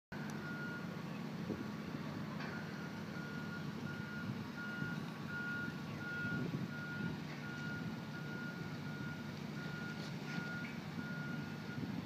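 Backup alarm on construction equipment beeping at an even pace, about three beeps every two seconds, over a low, steady engine rumble.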